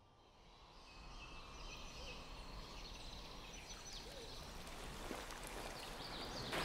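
Forest ambience fading in from near silence: birds chirping and calling over a steady outdoor hiss, with rushing water swelling in near the end.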